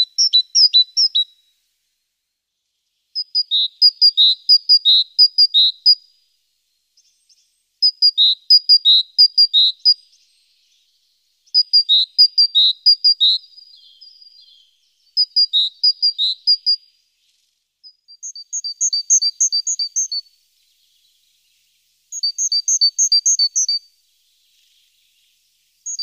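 Great tit singing: seven short phrases of quickly repeated two-note figures, a higher note alternating with a lower one, with brief pauses between phrases.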